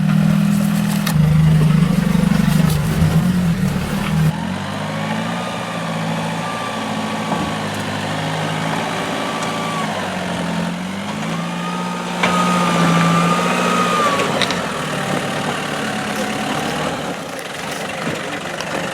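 Four-wheel-drive engine working at low revs during a slow rock crawl, the revs rising and falling gently as the throttle is eased.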